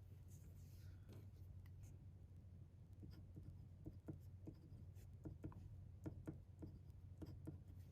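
Faint scratching and light ticks of a pen on paper, most of them in the second half, over a low steady hum.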